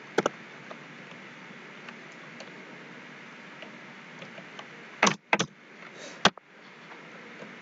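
Computer keyboard keystrokes: a few separate key presses over a steady background hiss, with a loud cluster of strikes about five seconds in and another just after six seconds.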